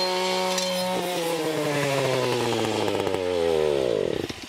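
Gas string trimmer engine running fast and steady, then cut off about a second in and winding down, its pitch falling slowly and then dropping sharply until it stops near the end.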